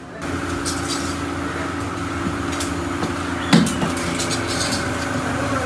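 Naan bakery at work: a steady mechanical hum with light clinks of metal tools, and one sharp knock about three and a half seconds in.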